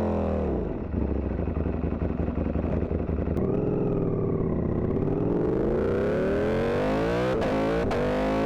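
Ducati V4 engine through an aftermarket exhaust: the revs fall away in the first second, hold low and uneven, then climb steadily over the last few seconds. A few brief dropouts come from the overloaded microphone cutting out.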